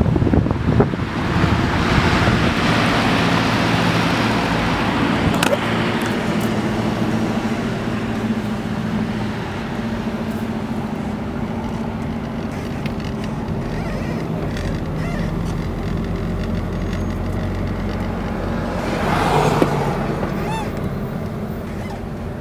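A car driving, heard from inside the cabin: a steady low engine hum under tyre and road noise. The noise swells briefly near the end.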